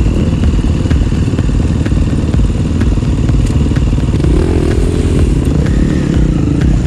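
Enduro dirt bike engines running close to the microphone with a steady low chatter. About four seconds in, a second bike's engine note rises and wavers as it is ridden off.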